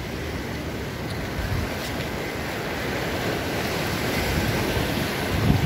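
Sea surf washing over a rocky shore, a steady rushing noise that swells slightly towards the end, with wind rumbling on the microphone.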